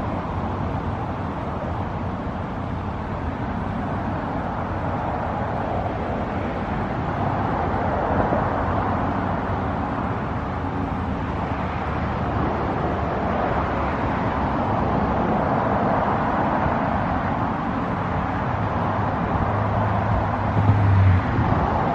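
Steady road traffic from a busy road: cars passing in a continuous wash that swells and fades, with a deeper engine hum growing louder near the end.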